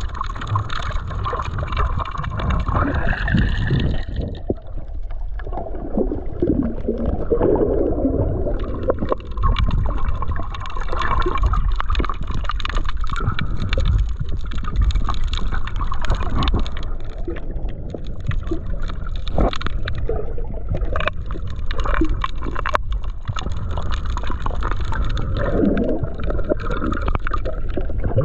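Underwater sound picked up by a GoPro held below the sea surface: a steady, muffled water rumble with gurgling.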